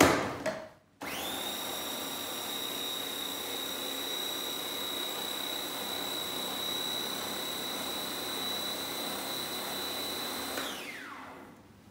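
Electric food processor motor running, blitzing strawberries with red wine and almond milk into a purée. It starts about a second in and spins up quickly to a steady high whine. Near the end it winds down, the whine falling until it stops.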